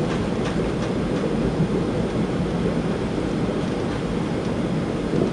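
Steady cabin noise of a Boeing 757-200 on approach: an even rumble of engines and airflow heard from inside the cabin.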